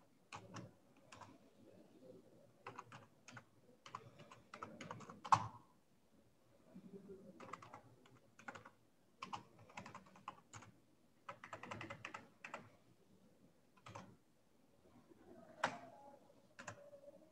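Typing on a computer keyboard, faint: runs of quick key clicks broken by short pauses, with a louder single key strike about five seconds in and another near the end.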